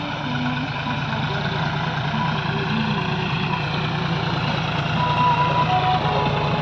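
Farm tractor's diesel engine running steadily while driving a rotavator that tills the soil, with a thin high tone rising above it briefly about five seconds in.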